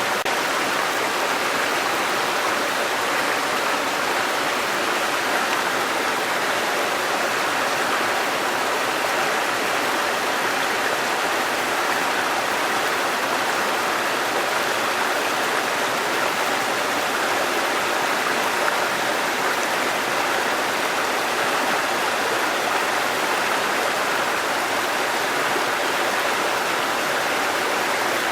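Waterfall: water falling and rushing in a steady, even flow.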